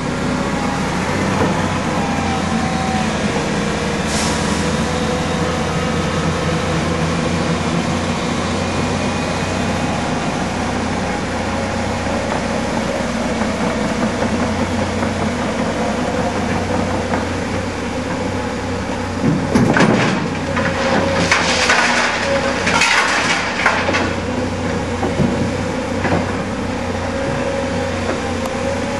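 Diesel engines of a tracked excavator and other earthmoving plant running steadily under load. About two-thirds of the way through comes a few seconds of loud clattering and scraping from the digging and loading of earth and stone.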